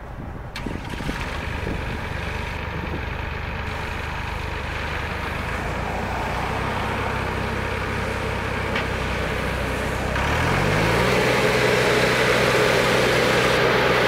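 2001 John Deere 250 skid steer's diesel engine idling at a low steady speed, then about ten seconds in it revs up quickly and holds a higher, louder speed as the loader arms start to lift.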